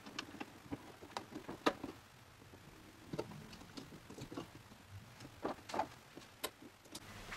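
Faint, scattered clicks and taps of black plastic hinge parts against the acrylic frame of a Wanhao Duplicator 4X 3D printer as its front door is fitted by hand.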